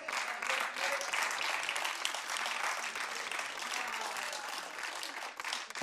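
Studio audience and contestants applauding: many hands clapping in a dense, steady patter.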